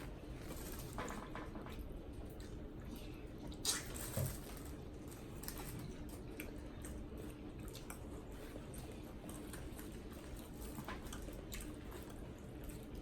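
Wet, squishy eating sounds of a saucy seafood boil eaten by hand, with scattered small clicks. A sharper click and a low thump come about four seconds in.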